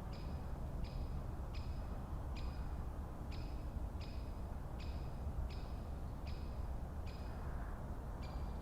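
Forest ambience: a steady low rumble, with a bird repeating one short, high, flat note about one and a half times a second, the rhythm slightly uneven with brief gaps.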